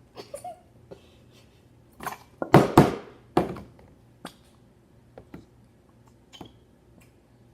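A plastic glue bottle squeezed and handled at a table: scattered light taps and clicks, with a louder cluster of short bursts about two and a half to three and a half seconds in.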